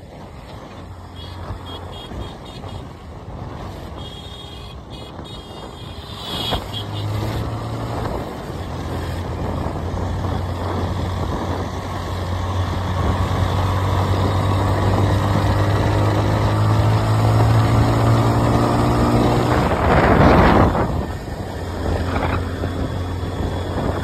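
Motorcycle engine running on the road, its pitch climbing slowly as the bike gathers speed, then dropping back after a brief loud rush of noise about twenty seconds in. A truck goes by in the first few seconds.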